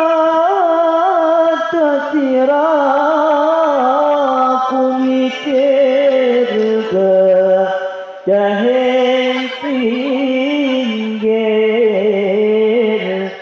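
A man singing a Javanese sholawat (Islamic devotional song) solo into a microphone, drawing out long wavering notes with melismatic turns. The voice breaks off briefly about seven and eight seconds in and fades away near the end.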